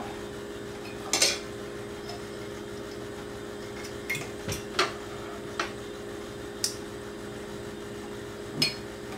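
Irregular clinks of a metal spoon and forks against a glass jar and ceramic plates, about seven over the stretch, with a steady low hum underneath.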